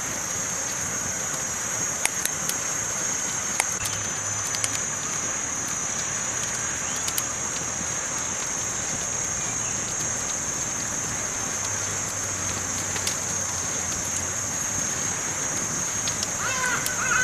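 Campfire burning with a steady hiss and scattered sharp crackles and pops, most of them in the first few seconds. A steady high-pitched tone runs underneath, and a brief warbling sound comes near the end.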